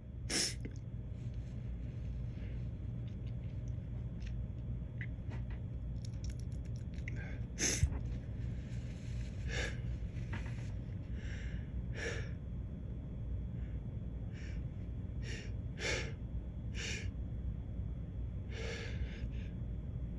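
A man's sharp gasping in-breaths and sniffs as a sneeze builds but will not come: a run of false-start sneezes. There are about ten short breaths spread out, and the sharpest is about eight seconds in.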